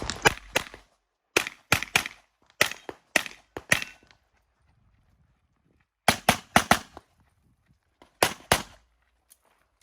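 Pistol shots fired in rapid strings of two to four, about fifteen in all, with a pause of roughly two seconds midway as the shooter moves between positions.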